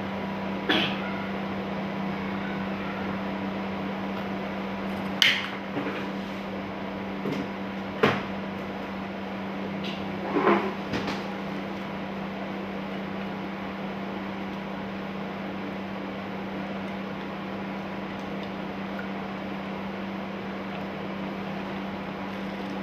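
Steady hum of a running kitchen appliance, with a few sharp knocks and clinks of kitchenware about one, five, eight and ten and a half seconds in.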